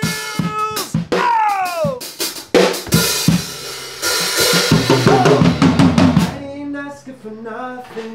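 Band music led by a drum kit playing a beat, with bass and a pitched melody line, including a long falling slide about a second in.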